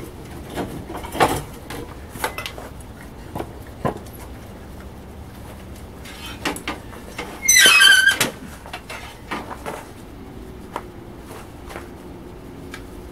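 Scattered metal clicks and knocks while a red-hot steel slab is handled and worked with tools. About halfway through comes one loud, wavering metallic squeal that lasts under a second.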